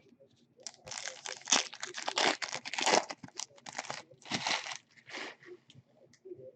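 Trading-card pack wrapper crinkling and tearing as it is handled and opened, a run of crackling rustles starting about a second in and dying away about five seconds in.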